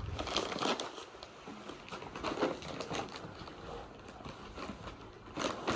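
Faint cooing of pigeons, with a few soft scuffs and knocks, one near the end.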